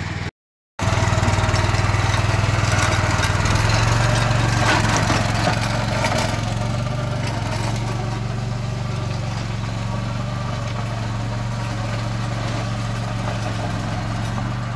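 Swaraj Code compact tractor's diesel engine running steadily under load, driving a rear rotavator through dry soil. The sound cuts out completely for about half a second just after the start.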